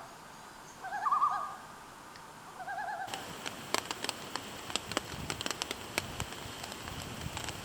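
Common loon giving its wavering tremolo call in short phrases, twice in the first three seconds. Then, from about three seconds in, a campfire crackling with many sharp snaps.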